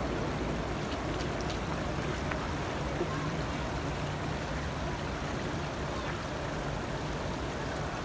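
Water trickling and splashing in a stepped stone fountain pool: a steady wash of noise with a steady low rumble beneath it.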